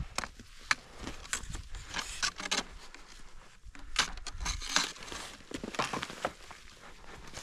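Irregular crunching and crackling steps in hard, crusted snow, with some louder crunches about four seconds in.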